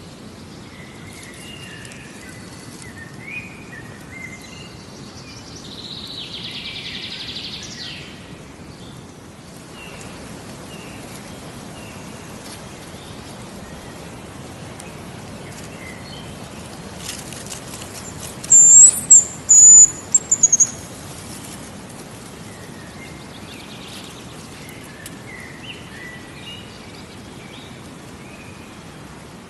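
Hazel grouse whistling: a short run of very high, thin whistled notes a little past the middle, the loudest sound, over steady outdoor background noise with faint calls of other small birds near the start and end.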